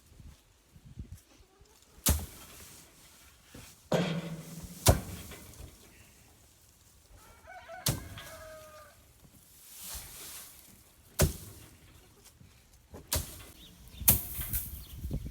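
Bundles of wheat being beaten down onto a cloth-covered floor in hand threshing: about seven sharp strikes at irregular intervals of one to three seconds. A chicken clucks briefly in the middle.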